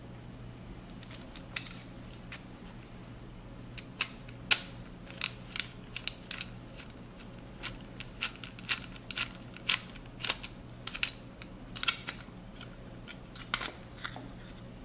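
Phillips screwdriver and small screws clicking and scraping against the steel mounting strap and metal canopy of a pendant light fixture as the screws are backed out: irregular light metallic clicks, some sharper than others.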